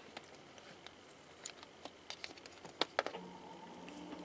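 Scattered light clicks and taps of small plastic jelly gouache paint cups being handled and set into a plastic palette tray.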